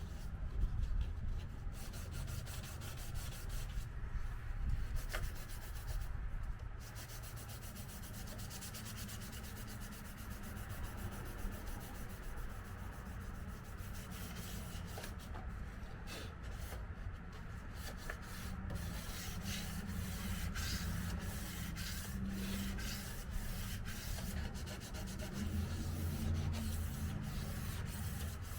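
Sandpaper being rubbed by hand over a car body panel in quick back-and-forth strokes, a steady scratchy rasp.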